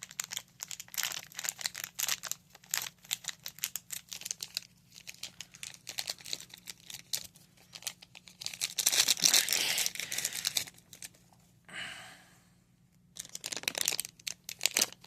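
Packaging being crinkled and handled during an unboxing: irregular crackling throughout, with a louder, longer stretch of rustling and tearing about nine seconds in and a short pause a little after twelve seconds.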